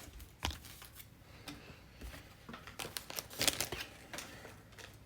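Football trading cards and their foil packs being handled: scattered light clicks and rustles, busiest a little past the middle.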